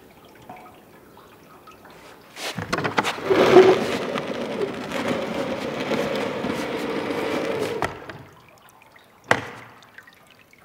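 A rushing, water-like sound starts a couple of seconds in, runs steadily for about five seconds and cuts off suddenly. A single sharp knock follows.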